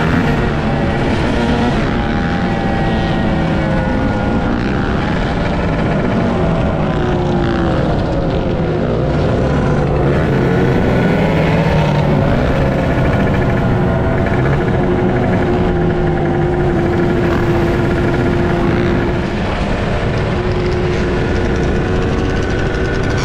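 Several dirt bike and quad ATV engines running together, revving, their pitches rising and falling against one another. Underneath is a steady rush of noise.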